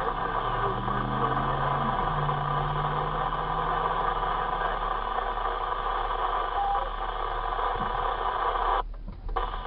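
Car engine and road noise inside the cabin, under a steady hiss from the two-way radio. The hiss cuts out briefly near the end.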